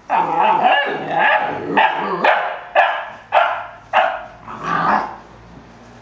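Fila Brasileiro puppies barking and growling in play: a drawn-out, wavering growly bark, then a run of about six short, sharp barks roughly half a second apart, stopping about five seconds in.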